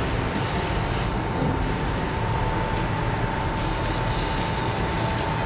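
Steady rushing air and rumble in a paint spray booth while a compressed-air spray gun dusts metal-flake paint onto a car, with a steady hum running through it.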